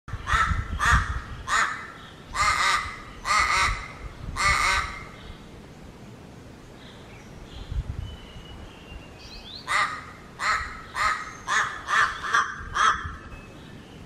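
Crow calling: a series of six harsh, nasal caws, then after a pause a quicker run of about seven shorter caws.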